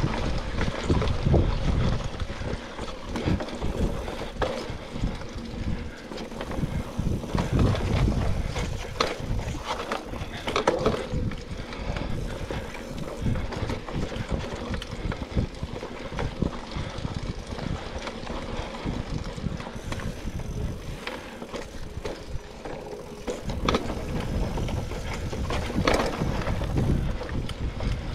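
Mountain bike rolling along a dirt singletrack trail: tyres on dirt and the bike rattling and knocking over bumps, with wind buffeting the camera microphone.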